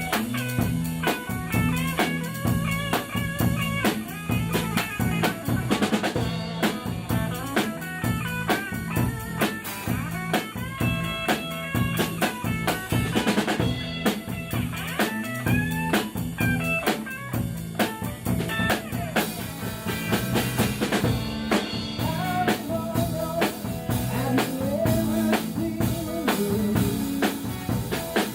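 Rock music: a full drum kit keeps a steady beat under bass and a melodic lead line.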